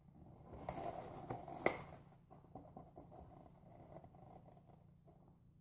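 Faint rustling and handling of a paper towel as a rubber band is stretched around the rim of a glass, with one sharp click a little under two seconds in and a few light ticks after.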